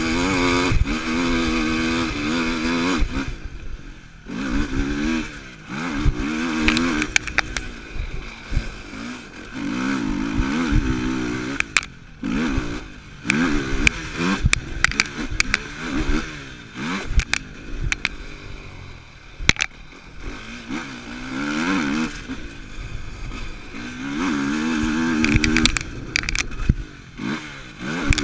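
Yamaha YFZ450R sport quad's single-cylinder four-stroke engine revving up and backing off repeatedly, every few seconds, as it is ridden hard over a dirt track, heard from the machine itself. Sharp knocks and clatter from bumps and landings run through it.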